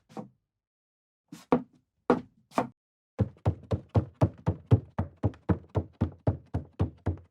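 Footsteps on a wooden floor: a few slow, spaced steps, then from about three seconds in a quick, even run of steps, close to four a second.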